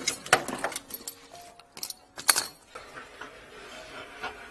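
Clattering of plumbing gear being handled: a quick run of sharp knocks and clicks from the corrugated plastic hose and pump equipment being moved, which thins out after about two and a half seconds to a faint steady background.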